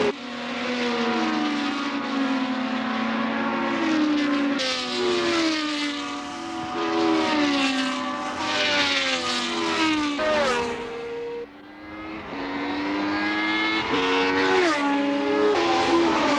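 1970s Formula 1 racing car engines at high revs, the pitch climbing and then dropping sharply again and again as they change up through the gears, with more than one engine heard at once.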